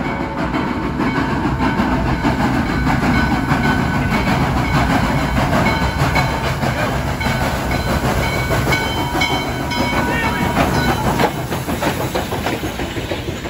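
Western Maryland 1309, a 2-6-6-2 Mallet steam locomotive, approaching and passing close with its train: a steady rumble and hiss, with a quick run of wheel clicks over rail joints as it goes by, loudest about eleven seconds in.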